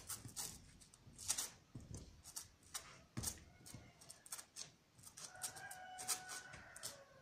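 Faint scrapes and scuffs of sneakers and clothing against a rough concrete wall as a person hauls himself up onto it. In the second half there is a faint, drawn-out pitched call in the background.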